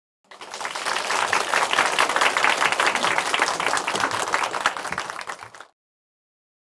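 A small group of about a dozen people applauding, a dense patter of hand claps. It builds over the first second and cuts off abruptly near the end.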